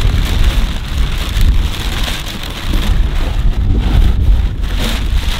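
Crumpled brown kraft packing paper rustling and crackling as it is pulled and pushed around inside a cardboard box, over a low rumble of wind on the microphone.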